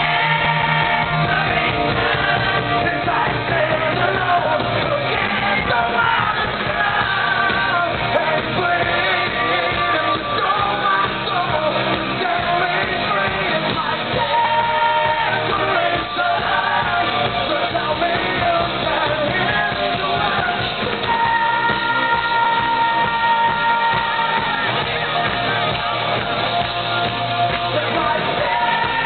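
Live rock band performing: a male lead singer sings over electric guitar and a steady drum beat, recorded from the audience.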